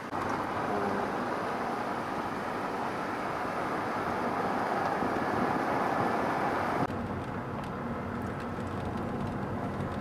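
Steady engine and road noise of a vehicle being driven. The noise drops a little abruptly about seven seconds in.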